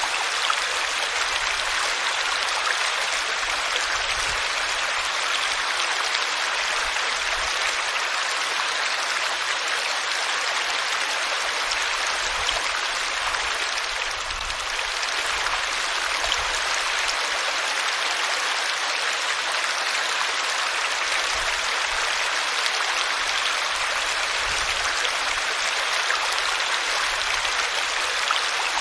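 Water of a small stream flowing over rocks, a steady rushing and babbling.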